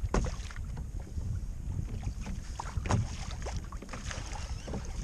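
Kayak on choppy sea: wind buffeting the microphone as a steady low rumble, with water lapping against the hull in irregular small splashes and knocks.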